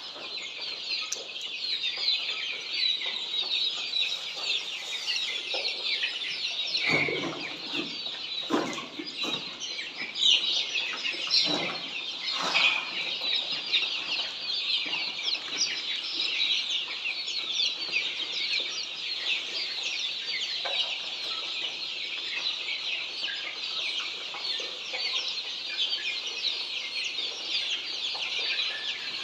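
A large brood of Australorp chicks peeping continuously, many high chirps overlapping. A few dull knocks sound in the middle.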